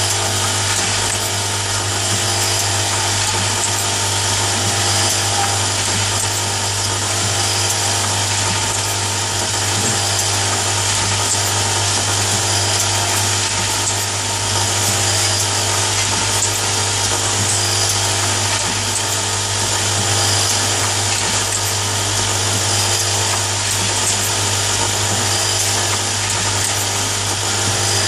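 Automatic nail polish filling and capping machine running: a steady motor hum and whir from its indexing table and capping heads, unchanging throughout.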